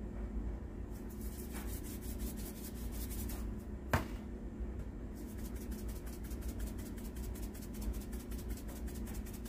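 Salt and pepper shakers shaken over a plate of chicken and rice, in two runs of quick, even rattling strokes, the second run longer. A single sharp click about four seconds in, between the runs, is the loudest sound.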